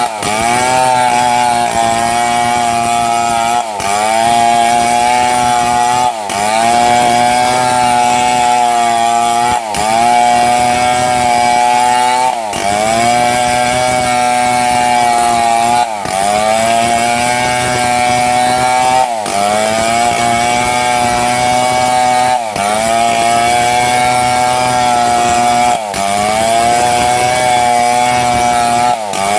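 Two-stroke chainsaw running at high revs, ripping a mahogany log lengthwise. The engine pitch dips briefly under load and recovers about every three seconds.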